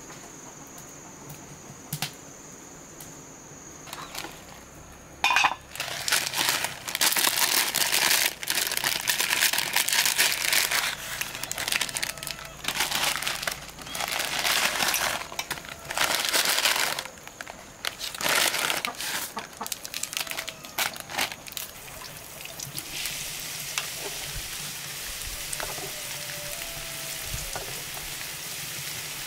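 A steady high insect trill, then loud irregular bursts of rustling and crinkling for about fifteen seconds, giving way to a steady hiss near the end.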